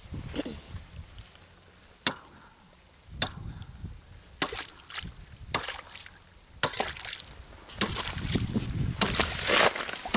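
Thin pond ice being broken by repeated strikes: from about two seconds in, a sharp crack roughly once a second, each followed by ice shards clattering and water sloshing, coming faster near the end.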